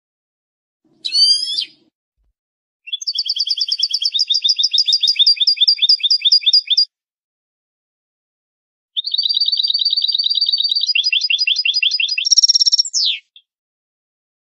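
European goldfinch song: a short call, then two long trilled phrases of rapidly repeated high notes. The second phrase ends in a higher buzzy note and a quick falling sweep, with dead silence between phrases.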